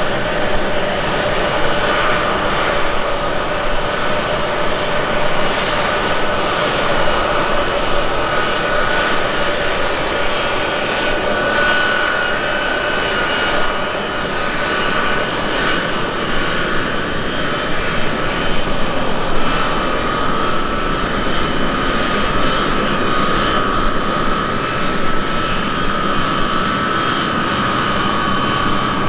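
Boeing C-17A Globemaster III's four Pratt & Whitney F117 turbofans running at taxi power: a steady jet whine and rush with a few held tones that shift slightly in pitch about halfway through.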